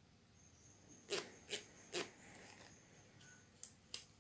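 Audio-Technica ATH-M40x headphones handled in the hands: five sharp plastic clicks and knocks, three in the first half and two close together near the end.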